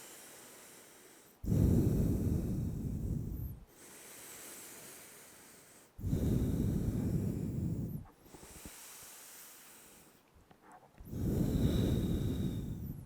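A person breathing deeply and slowly close to the microphone while holding a yoga pose: three loud, rushing breaths of about two seconds each, with quieter breaths between them.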